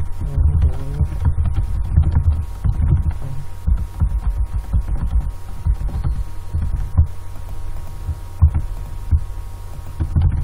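Computer keyboard keystrokes picked up as irregular, dull low thumps and clicks, over a steady electrical hum in the recording.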